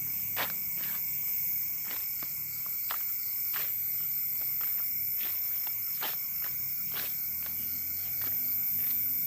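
Night insect chorus: crickets keeping up a steady, shrill, many-layered drone. Irregular short clicks or taps come through it one or two times a second, over a faint low hum.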